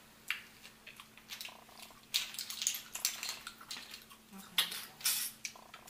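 Close-up eating sounds of a seafood boil being eaten by hand: repeated slurping and lip-smacking at clams and crawfish, with small clicks of shells and utensils. The louder slurps come in two clusters, about two seconds in and again near the five-second mark.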